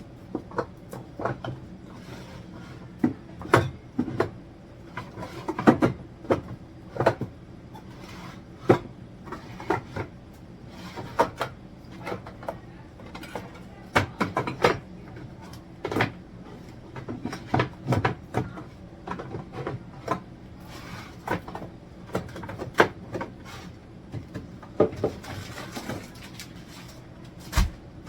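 Food containers, jars and bottles being handled in a refrigerator during a clean-out: irregular knocks, clunks and clatter as items are picked up and set down on the shelves, over a faint steady low hum.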